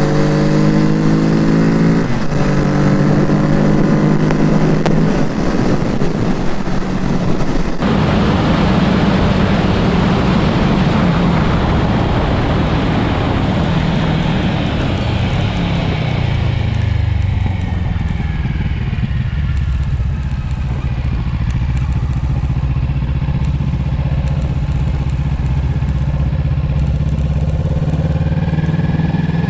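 Onboard sound of a Kawasaki Z650's parallel-twin engine under way, with wind rushing past. The engine note climbs at the start, drops about halfway through as the bike slows, holds lower, then climbs again near the end.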